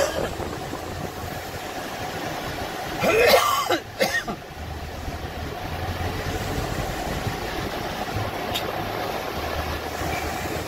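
Car driving slowly, its engine and road noise a steady low hum, with a brief loud sound about three seconds in and a shorter one just after.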